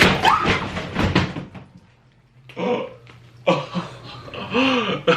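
Children yelping and shrieking in excitement, opening with a dense run of sharp crackling noises in the first second and a half.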